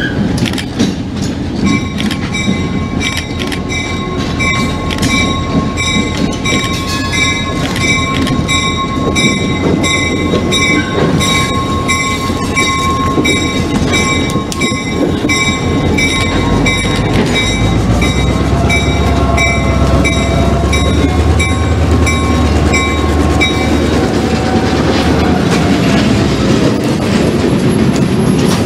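A diesel-hauled freight train passes a grade crossing: the Providence & Worcester locomotive goes by and its boxcars clatter over the rails. A crossing bell rings in quick, even strokes and stops about three-quarters of the way through.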